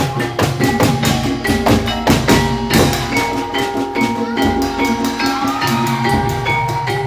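Live Javanese incling ensemble playing: drums and struck metal and bamboo percussion in a quick, even beat under held pitched notes.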